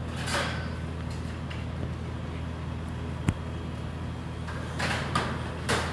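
A metal utensil scraping and clinking in a stainless steel frying pan: a few short scraping swishes and one sharp clink a little past the middle, over a steady low hum.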